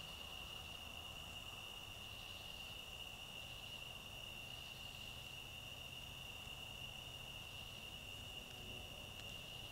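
Steady chorus of night insects: one continuous high-pitched drone.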